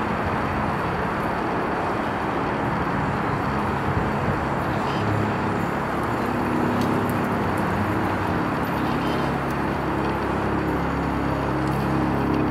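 Steady city street traffic noise, with a low engine hum from a passing or idling vehicle joining about five seconds in.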